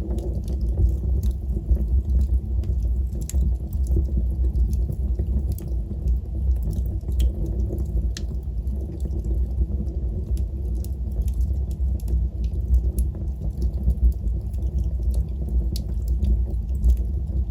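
Wood fire burning with a steady low rumble and irregular sharp crackles and pops from the burning logs.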